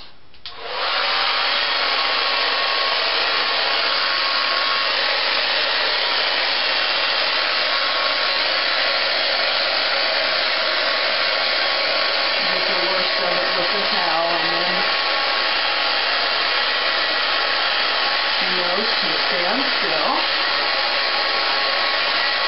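Handheld hair dryer switched on about half a second in, then running with a steady, even blowing noise while drying a small dog's wet coat.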